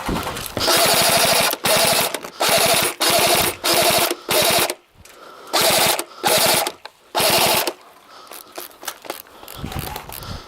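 An airsoft gun firing short full-auto bursts, about nine in a row, each half a second to a second of rapid mechanical clacking. A short pause comes about halfway through, and the firing stops near the end.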